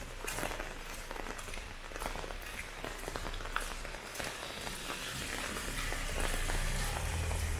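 Heavy rain falling and splashing on surfaces, with many separate drop hits. A low rumble builds near the end.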